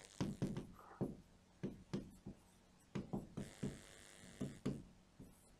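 Stylus pen writing on an interactive smart board screen: a faint, irregular run of short taps and scratches as letters are stroked out.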